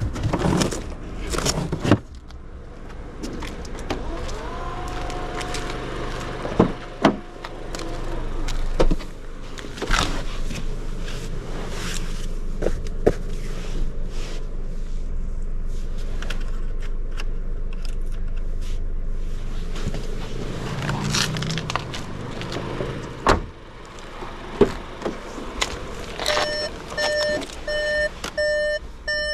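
Inside a Skoda Kamiq's cabin, a steady low engine hum runs under a string of sharp clicks and knocks. Near the end comes a run of evenly spaced electronic beeps, about two or three a second.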